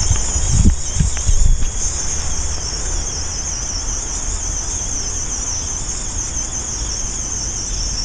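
A steady, high, wavering insect chorus of crickets, over the low running of a VEX tank-tread robot's motors and treads crawling across grass under load. A few dull low thumps come in the first two seconds.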